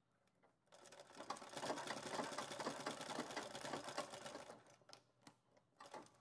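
Flatbed sewing machine with a roller presser foot stitching leather, running fast for about four seconds from about a second in, then slowing and stopping. A few separate clicks follow near the end.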